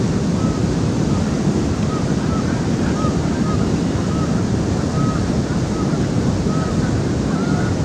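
Steady rush of river water pouring over a low dam spillway. Short, faint bird calls recur about once a second above it.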